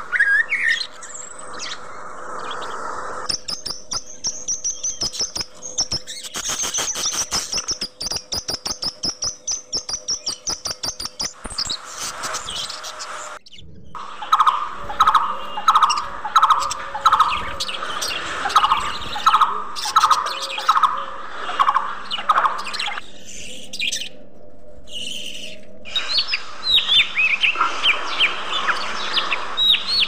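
Caged budgerigars chirping and chattering, with abrupt changes in the sound where clips are joined. One stretch has a high, steady trill. Another has a run of evenly repeated chirps. Near the end comes quicker, higher chatter.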